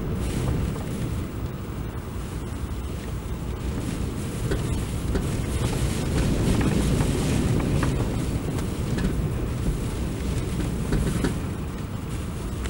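Heavy surf breaking on rocks and washing over the shore in a steady rushing roar that swells louder about six seconds in, with wind buffeting the microphone.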